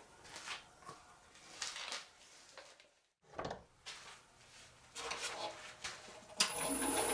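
Light knocks and clatter of objects being handled in a workshop. Near the end a power tool starts with a sharp onset and runs up to a steady hum with a high whine.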